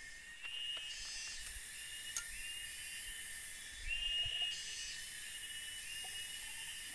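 Water poured from a plastic bottle into an upright bamboo tube, beginning about four seconds in. The filling tube sounds like water being poured into a thermos.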